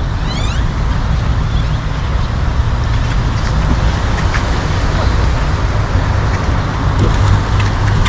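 Dense, steady din of calls from a huge flock of birds wheeling overhead, with a low steady rumble of traffic underneath.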